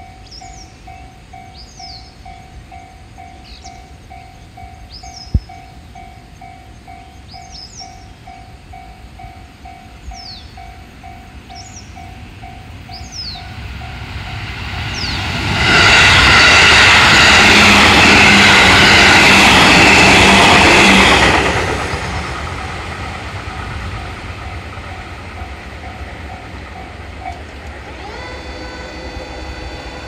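Japanese level-crossing warning bell ringing in a steady 'kan-kan' beat, about two strikes a second, while a JR West 221 series electric train approaches and passes. The train is loudest for about six seconds midway. The bell stops near the end as the crossing clears.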